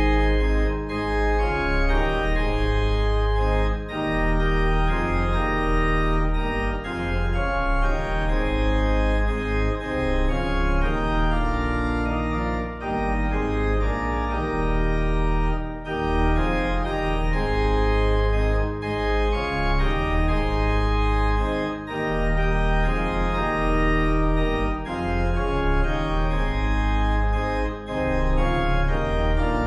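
Organ music: slow, sustained chords over a deep bass, changing every second or two.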